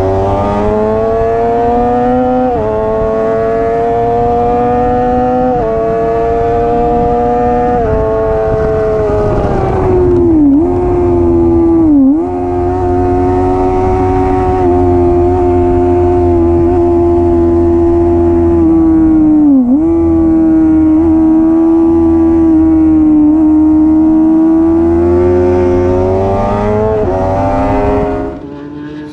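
Suzuki GSX-R 600's inline-four engine at high revs on track. Its pitch climbs in steps, dips sharply a few times, holds steady, then rises again. The sound drops off suddenly near the end.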